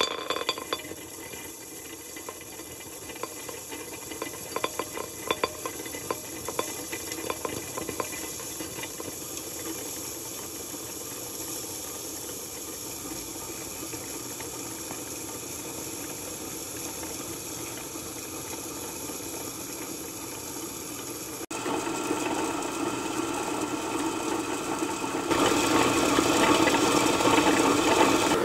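Stone melanger running, its granite rollers grinding cocoa nibs over a steady motor whir. For the first several seconds the dry nibs crunch and crackle under the stones. Later the sound evens out and grows louder as the nibs turn to a liquid chocolate paste.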